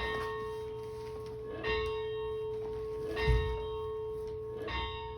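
A large bell rung by pulling its rope, striking four times about a second and a half apart. Each stroke rings on under the next over a steady hum.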